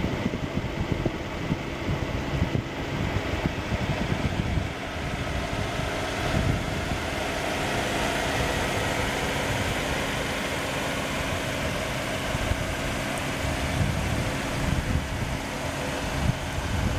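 A car engine idling steadily, with wind buffeting the microphone during the first few seconds.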